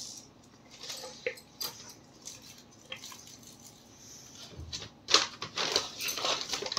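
A bite into a paneer roll and close-up chewing, with small clicks of mouth and wrapper sounds. A burst of rustling from the aluminium foil and paper wrapper comes about five seconds in.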